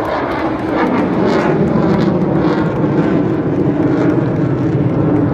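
Jet aircraft flying overhead, a loud steady engine rumble that swells slightly about a second in.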